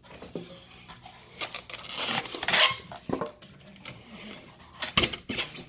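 Packaging being broken apart by hand to free a part of a new stand mixer: irregular crackling, rustling and hard clatter, loudest about two and a half seconds in, with a sharp knock about five seconds in.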